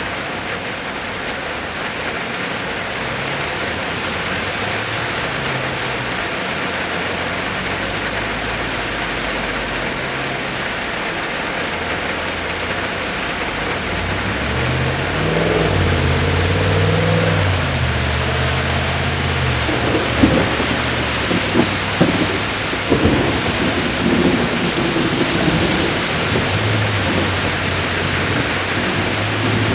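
Steady rain falling during a thunderstorm. About halfway through, a low rumble of thunder comes in and the sound gets a little louder. A few sharp knocks follow in the last third.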